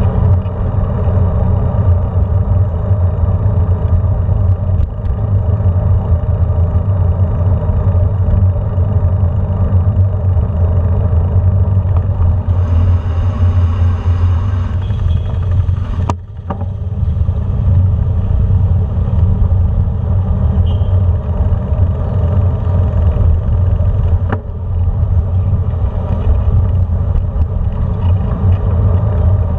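Steady low rumble of riding a bike over a brick-paved street: road and wind noise on a handlebar-mounted camera, with traffic close by. It dips briefly twice.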